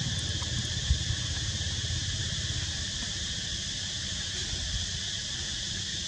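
Steady outdoor insect chorus, a continuous high buzzing drone, over a low rumble, with a single soft knock about a second in.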